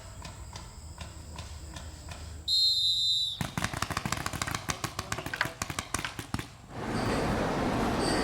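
A high, steady signal tone sounds for just under a second as a round starts after a ten-second countdown. Rapid, irregular sharp pops follow for about three seconds, then a steady noisy rush.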